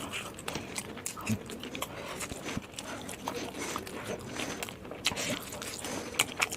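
A person chewing and eating momos (dumplings) close to the microphone: irregular clicking and smacking mouth sounds.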